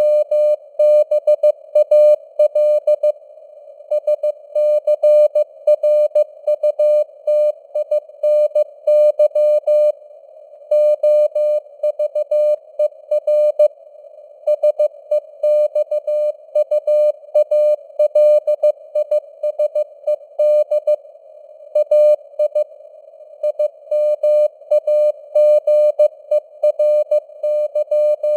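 Morse code at 15 words per minute, sent as a single steady pitched tone keyed on and off in dots and dashes with short gaps between letters and words. It sits over a narrow band of simulated radio hiss, and the signal strength rises and falls to mimic fading (QSB). The keying stops at the very end.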